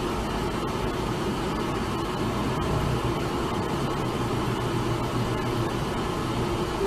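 Steady engine and road rumble heard from inside a vehicle creeping along slowly in traffic.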